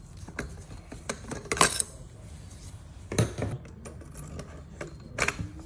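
Scattered clicks and clinks of hard objects being handled, with three louder knocks spaced about a second and a half apart.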